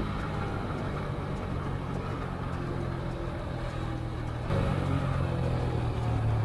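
TVS Apache RTR 160 4V single-cylinder motorcycle engine running off the throttle as the bike slows down after a hard acceleration run, with road noise. The sound steps up in loudness about four and a half seconds in.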